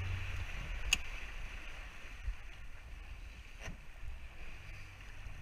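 Small motorboat under way on a choppy sea: the engine runs with a steady low hum under water and wind noise, and two sharp knocks come about a second in and past the middle.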